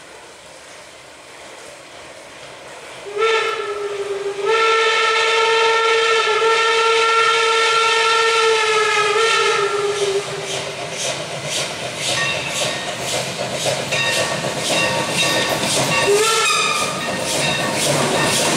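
Steam locomotive whistle: a short blast, then a long blast of about six seconds whose pitch sags slightly as it ends. After it the locomotive's exhaust chuffs come in a steady rhythm as it approaches, with one more short whistle blast near the end.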